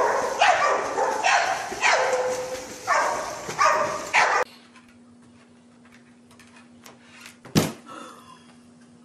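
A dog barking over and over, about twice a second, over splashing pool water, cut off abruptly about four and a half seconds in. Then a faint steady low hum with one sharp knock near the end.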